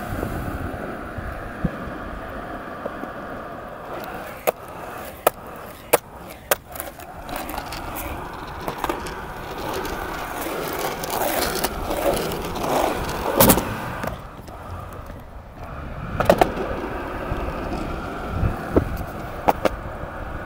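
Skateboard rolling on concrete, wheels running steadily, broken by a series of sharp clacks as the board strikes the ground. The loudest comes about two thirds of the way in.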